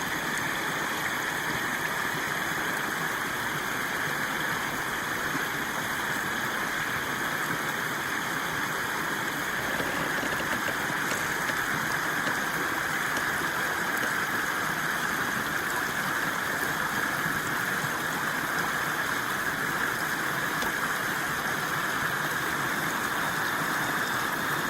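Steady rush of water flowing through a breached beaver dam, an even sound that does not change.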